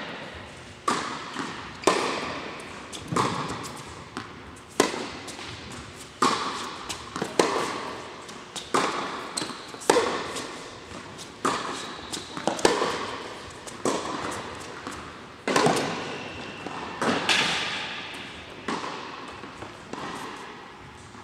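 Tennis ball struck back and forth by racquets and bouncing on an indoor hard court in a long rally: sharp hits about every second or so, each echoing in the large hall.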